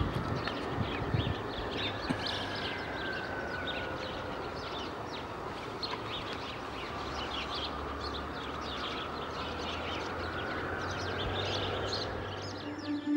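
Many small birds chirping in a dawn ambience, quick high chirps over a steady low hum.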